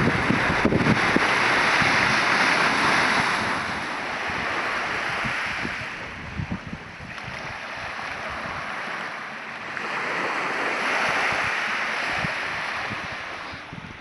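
Sea surf washing in and out, a rushing noise that swells and fades every few seconds, with wind buffeting the microphone.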